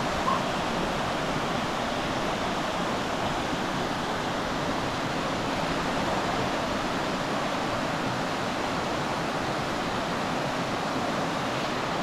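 Steady rush of a mountain river tumbling over waterfalls and cascades.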